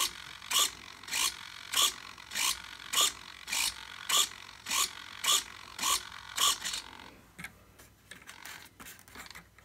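Model airplane rudder servo swinging the rudder and steerable tailwheel from side to side, a short mechanical stroke about every 0.6 seconds. It stops about seven seconds in, and light clicks and handling noise follow.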